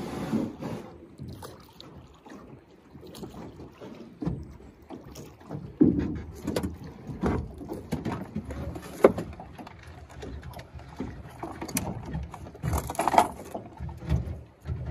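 Irregular knocks and clunks of a boat's hull and gear being handled aboard, over a low rumble of water and wind.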